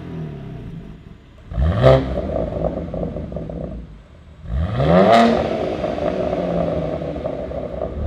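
BMW G80 M3's twin-turbo inline-six free-revving at a standstill: two quick throttle blips about three seconds apart, each rising sharply and falling back, then settling to idle. The first is through the stock exhaust and the second through a Valvetronic equal-length mid-pipe, both with the exhaust valves open.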